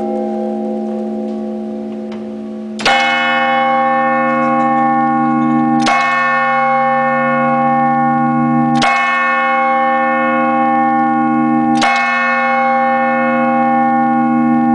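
A church tower bell striking four o'clock, heard close from inside the tower: after the fading hum of an earlier stroke, the bell is struck four times about three seconds apart, each stroke ringing on into the next.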